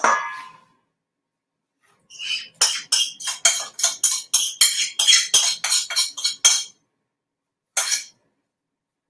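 A ringing clink on a stainless steel mixing bowl, then a quick run of scraping strokes, about four a second for some four seconds, as a spatula scrapes wet brownie batter off a plate into the bowl; one more scrape near the end.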